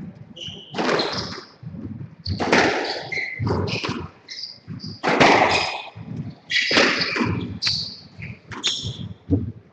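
Squash rally: the ball cracking off rackets and the court walls with sharp strikes that echo in the enclosed court, about one every second or so, with short high squeaks of shoes on the wooden floor between them.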